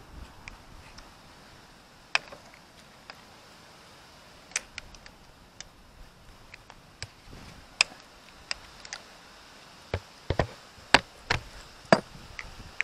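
Sharp metallic clicks and clinks of a socket wrench on an extension bar loosening the crankcase cover bolts on a Zontes Tiger 125cc motorcycle engine. They come irregularly, a few at a time, bunching closer and louder over the last few seconds.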